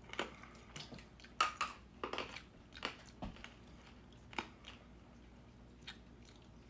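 Hard candy cane being bitten and crunched: a scattered run of sharp crunches, closer together in the first few seconds and sparser toward the end.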